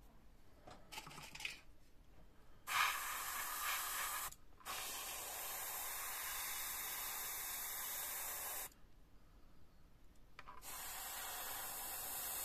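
Airbrush spraying thinned paint onto a model propeller: three bursts of even hiss, the first about a second and a half long, the second about four seconds and the third about two and a half seconds.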